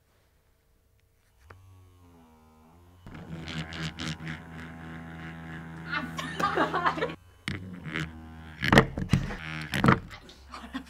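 A corded vibrator switched on: its motor starts a low hum about a second and a half in and rises in speed, then buzzes loudly, rattling against the table it stands on, cutting out briefly and giving several sharp knocks near the end.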